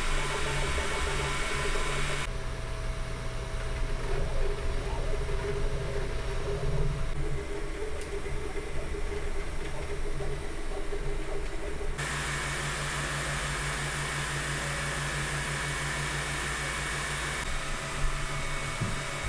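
Elegoo Neptune 4 Pro 3D printer running a print: a steady mechanical whir from its cooling fans, with the hum and whine of its stepper motors as the print head moves. The sound changes abruptly about two seconds in, about twelve seconds in, and again near the end.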